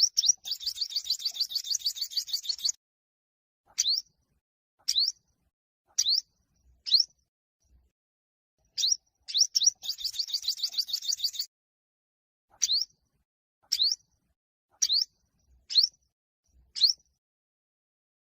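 Olive-backed sunbird singing: a fast trill of high rising chirps lasting about two seconds, then single upswept notes about once a second, then a second trill about halfway through, followed again by single notes.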